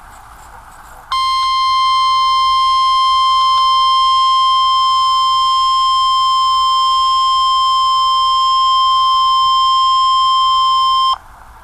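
Weather-radio emergency alert tone: a single loud, steady high-pitched tone that starts about a second in, is held for about ten seconds, and cuts off sharply, signalling that a warning message follows. Faint radio hiss lies before and after it.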